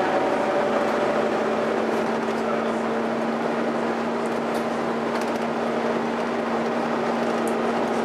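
Volvo B7TL double-decker bus heard from the upper deck, with a steady hoover-like whine from its cooling fan held on one pitch over the engine drone and cabin noise. There are a few light rattles from the bodywork.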